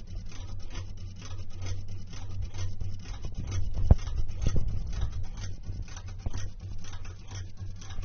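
Homemade 3D-printed safe auto-dialer's motor turning the combination dial of an S&G safe lock, giving a rapid, even ticking of several clicks a second over a low steady hum, with one sharper click about four seconds in. It is the machine stepping through combinations to brute-force the lock open.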